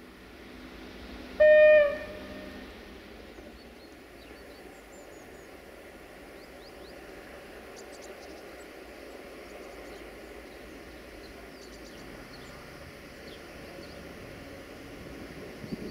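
Siemens Desiro VT642 diesel multiple unit sounding one short, loud single-tone horn blast about a second and a half in. After it comes a steady low running sound that slowly grows as the train approaches.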